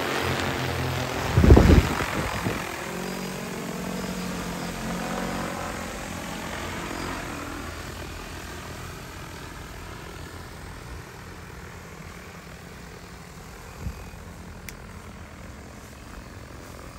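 DJI T20P four-rotor agricultural spraying drone flying low overhead and then away, its propeller hum fading steadily as it goes. There is a loud buffeting thump about a second and a half in.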